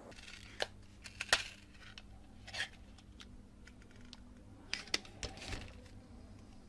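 Irregular sharp clicks and taps of hard plastic as an LED spotlight bulb and its loose plastic diffuser lens are handled and pried apart, over a faint steady hum.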